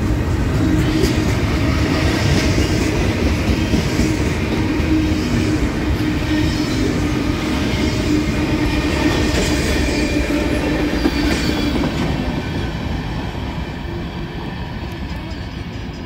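Freight train cars rolling past close by, steel wheels on rail, with brief high squeals now and then. The rolling noise fades over the last few seconds as the end of the train moves away.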